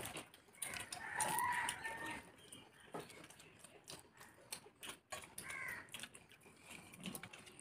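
Eating noises, chewing and lip smacks as rice is eaten by hand, under a bird calling twice. The call is a loud held one of about a second, starting about a second in, then a shorter one around five and a half seconds in.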